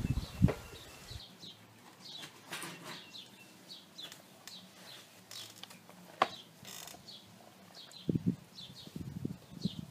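Metal clanking from the lid of a steel bullet smoker being handled, then birds chirping over and over in the background, with one sharp click about six seconds in and low handling knocks near the end.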